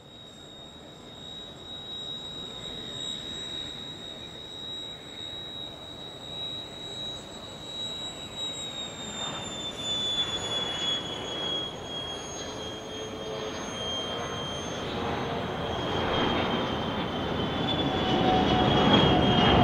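Beriev Be-200 amphibian's two D-436TP turbofans at takeoff power as it rolls, lifts off and climbs overhead: a high engine whine that drops slightly in pitch about halfway through, over jet noise that grows steadily louder and is loudest near the end.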